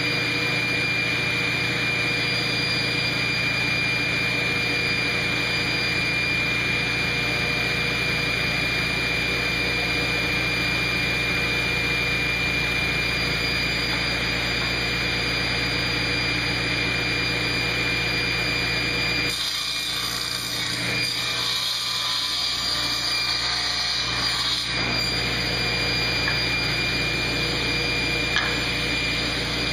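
Table saw running steadily with an even hum while boards are crosscut on a sled; for about five seconds past the middle the sound turns hissier and loses some low end.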